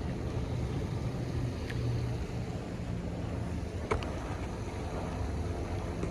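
A steady low rumble with a faint hiss over it, and a sharp click about four seconds in.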